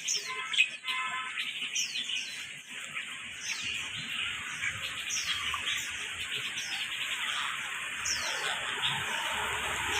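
Parrots chattering and chirping together: a dense, continuous din of calls, with short high chirps that fall in pitch repeating about once a second.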